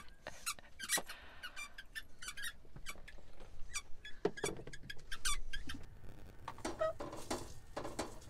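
Dog chewing a squeaky tennis-ball toy: repeated short, high squeaks coming at irregular intervals.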